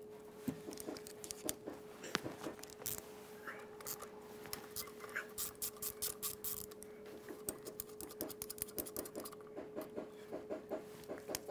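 Hex key clicking and scraping on metal as the two Allen bolts holding the vacuum control valve on the back of a Mercedes diesel injection pump are undone. It is a run of small irregular ticks that come thicker near the end, over a faint steady hum.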